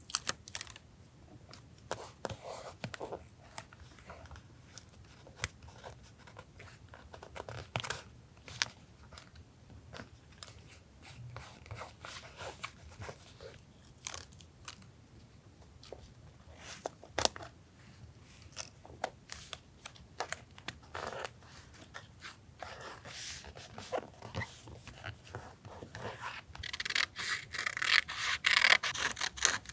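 Paper and sticker handling while decorating a journal: scattered taps, rustles and crinkles, with a denser, louder stretch of paper noise near the end.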